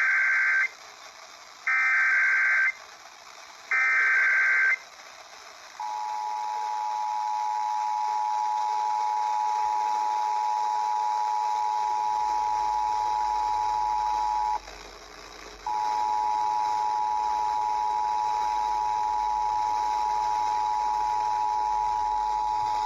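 Emergency Alert System test signal. Three one-second bursts of SAME header data tones come first. Then the EAS two-tone attention signal (853 and 960 Hz together) holds steady for about nine seconds, breaks off for about a second, and resumes.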